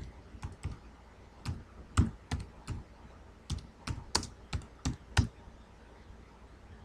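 Typing on a computer keyboard: irregular keystrokes that stop a little past five seconds in.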